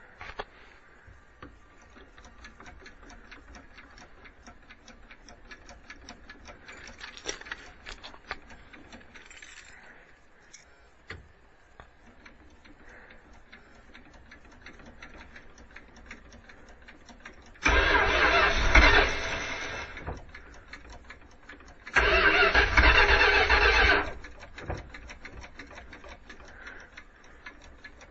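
Dodge Tradesman van engine being started cold: after a long quiet stretch, the starter cranks the engine in two loud bursts of about two seconds each in the last third, with a third attempt beginning at the very end.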